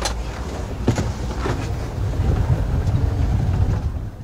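Low rumbling ride noise from a small open electric car moving over the paving, with wind on the microphone. There is a sharp knock at the start and another about a second in.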